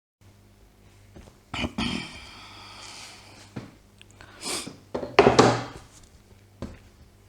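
Handling noises: two sharp knocks about a second and a half in, followed by a few irregular rustles and shuffles of things being moved about.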